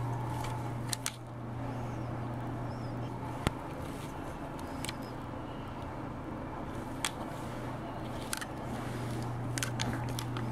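Steady low hum with a few short, sharp clicks and taps scattered through it, as a pet chinchilla scrambles about on a lap and the tile floor close to a handheld camera.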